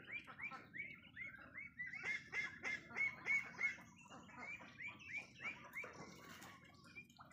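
A flock of farm poultry calling: many short calls that rise and fall in pitch, several a second and overlapping, loudest midway.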